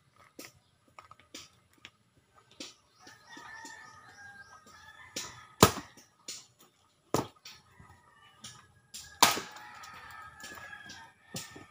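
Axe chopping firewood: three hard strikes into a log about a second and a half to two seconds apart, the first the loudest, with lighter taps between. A rooster crows twice in the background.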